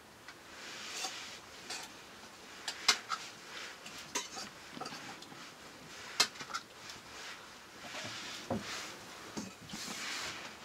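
Metal spoon and ladle clinking and scraping against steel plates and a metal pot as food is served out, with a few sharper clinks, the loudest about three and six seconds in.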